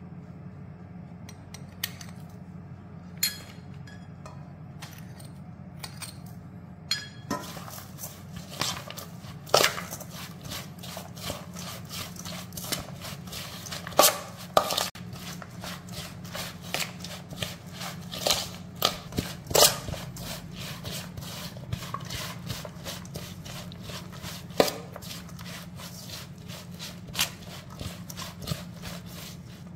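Metal spoon clinking and scraping against an aluminium mixing bowl while shredded green mango salad is tossed. A few light clicks come at first, then from about seven seconds in a busy, continuous clatter and rustle of mixing. A steady low hum runs underneath.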